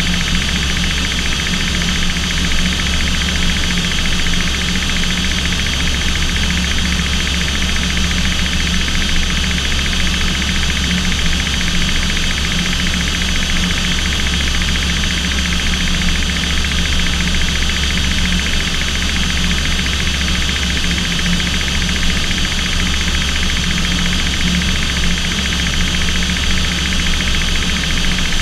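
Aircraft engines droning steadily, heard from inside the cockpit: a constant low hum with a higher whine above it that does not change.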